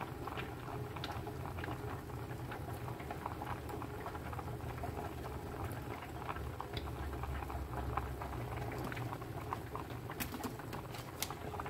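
A pot of blended tomato and pepper mixture bubbling on the stove: many small irregular pops and sputters over a steady low hum.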